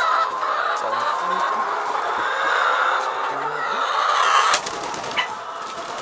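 A large flock of brown laying hens clucking together in a continuous dense chatter, turning somewhat quieter about four and a half seconds in.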